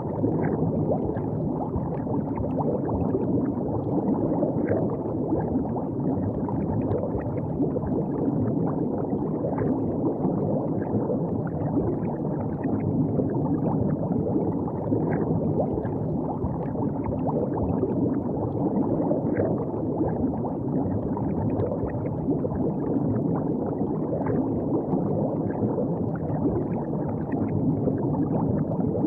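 River water gurgling and lapping steadily, a continuous low splashing with small irregular plops.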